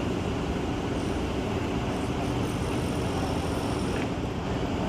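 Steady city street traffic noise, an even low rumble with no distinct events.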